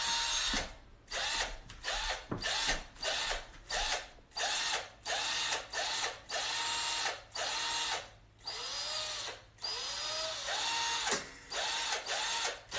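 Handheld cordless drill triggered in a long run of short bursts. Each burst is a motor whine that spins up and winds down, used as robot movement noises.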